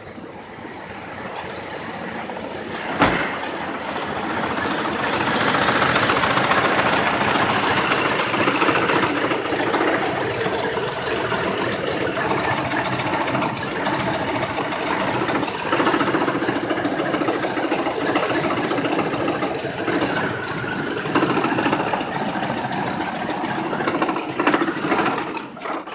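Chevy Colorado pickup's engine idling roughly, a problem that came on suddenly overnight. The sound grows louder over the first five seconds and then holds steady, with a single sharp click about three seconds in.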